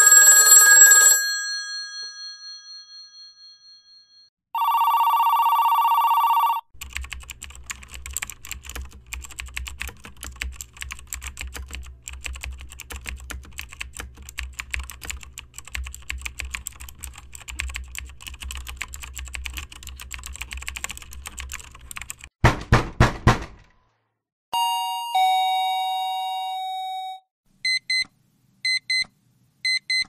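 A series of stock sound effects: a telephone bell rings and fades, then a short buzzing phone ring follows. Next comes about fifteen seconds of rapid typing on a computer keyboard, a brief rattle and a two-note electronic tone, and near the end a digital alarm clock starts beeping in short repeated beeps.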